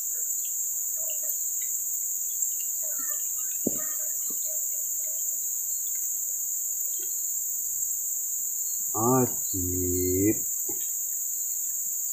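Steady, high-pitched insect chorus droning on two pitches from the riverside forest. About nine seconds in, a man's voice makes a short wordless sound lasting about a second.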